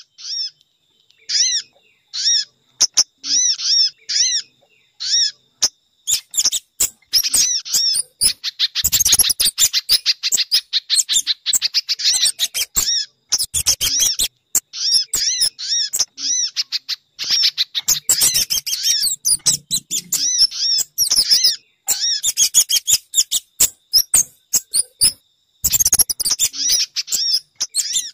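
Bird-lure recording mixing sogon, spiderhunter (pijantung) and kemade calls: rapid, high chirping notes in bursts of a few seconds with short gaps, thickening into dense chatter about a third of the way in, again past the middle, and near the end.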